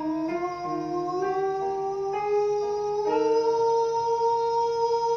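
A singer holds one long sustained note in a breath-and-relaxed-neck vocal exercise, drifting slightly upward in pitch over the first three seconds and then holding steady. Sustained accompaniment chords sound underneath and change a few times.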